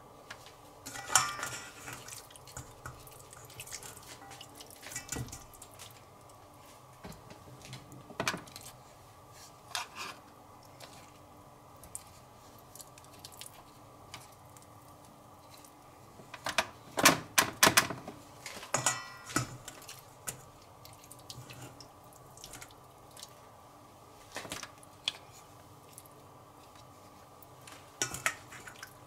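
Kitchen handling sounds: dishes and utensils clinking and knocking now and then, with a busy run of clatter a little past halfway, over a faint steady hum.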